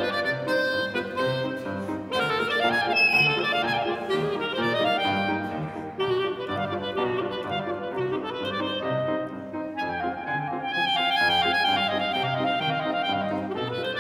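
Clarinet playing a melody of quick rising and falling runs, over a low accompaniment that pulses steadily underneath.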